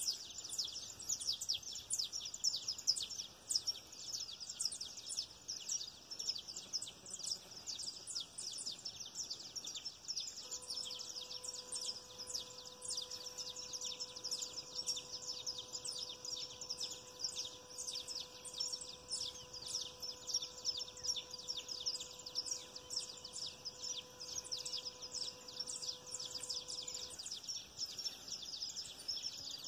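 Dense outdoor chorus of rapid, high-pitched chirping, many overlapping calls with no break. A faint steady hum comes in about a third of the way through and stops near the end.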